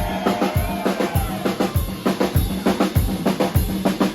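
Hip-hop song played live with no vocals for a few seconds: a drum kit keeps a steady beat, with kick drum and snare, over a held bass note. A few held higher notes fade out just at the start.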